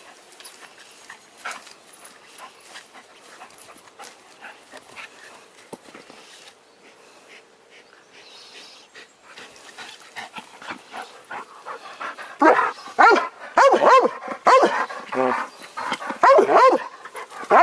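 A dog whines and yelps in short, repeated high calls, starting about two-thirds of the way in and coming several times a second. Before that there is only faint rustling and light clicks.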